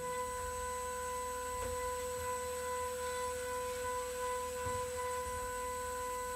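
Spindle of a Ringmaker jewelry CNC milling machine running with a steady, even whine as its cutter engraves a bangle.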